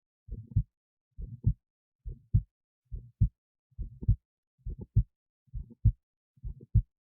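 A person's heartbeat picked up by an esophageal stethoscope lying in the esophagus near the heart: a steady lub-dub, eight beats at roughly 68 a minute, the second sound of each pair the louder and sharper.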